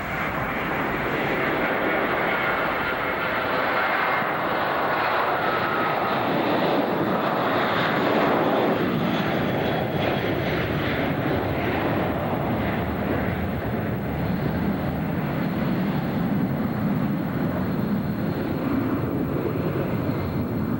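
Boeing 707's four jet engines at takeoff power as the airliner rolls past and climbs away: a loud rumble under a whine that falls in pitch over the first several seconds, the sound settling lower toward the end.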